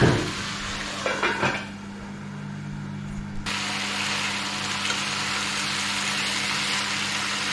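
Grey duiker meat sizzling in oil in a cast-iron frying pan. A few light clatters come about a second in, and the sizzle drops back briefly before returning strong and steady after about three and a half seconds.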